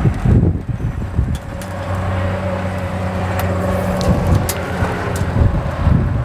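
An engine running steadily with a low hum, with wind gusting on the microphone near the start. There are a few light clicks and rustles as the plastic oil line is pulled through the machine.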